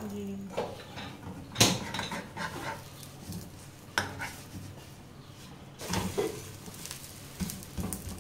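Plastic ladle and spatula scraping and knocking against a non-stick frying pan while a paratha cooks, with a sharp knock about one and a half seconds in, another about four seconds in, and several lighter scrapes and taps near the end.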